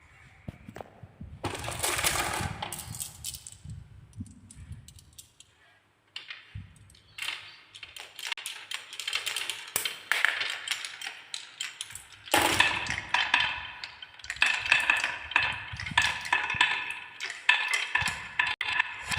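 Marbles rolling and clattering down a marble-run track in quick runs of clicks and rattles, with a short lull partway through. In the second half, dense clicking carries on under a steady ringing.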